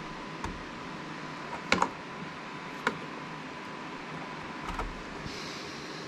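Sharp plastic clicks and knocks from PCIe riser connectors and cables being plugged in and handled. The loudest is a close pair of clicks just before two seconds in, with single clicks about half a second in and near three seconds, over a steady faint hiss.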